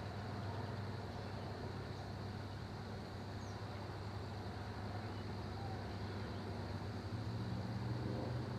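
Outdoor ambience: a steady low rumble with a steady high-pitched drone, a few faint high chirps in the first half, and the rumble swelling slightly near the end.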